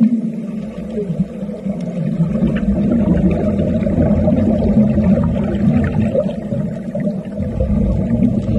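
Steady low underwater rumble and hum, swelling and easing in waves, as heard around a scuba diver working on a submerged platform leg.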